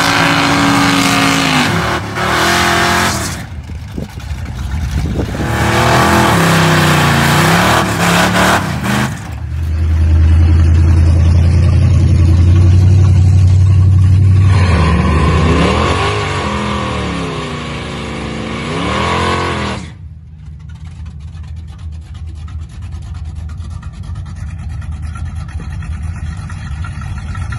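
A 1982 Chevy Camaro Z28 drag car's V8 doing burnouts, held at high revs with the rear tyres spinning, the revs rising and falling. About a third of the way in it changes to a steady high-revving drone, then more rising and falling revs. Roughly two-thirds through it drops to a quieter, steady engine note as the car rolls up to the line.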